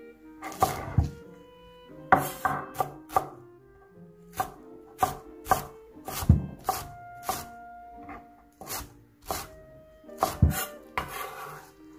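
Kitchen knife chopping on a cutting board in uneven strokes, often in quick bunches, about one or two a second, over soft background music.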